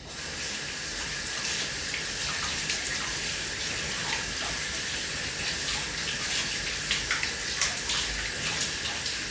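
Kitchen tap running into the sink while fresh cinnamon leaves are rinsed under it by hand, a steady splashing with small ticks of hands and leaves in the stream. The tap is turned on right at the start.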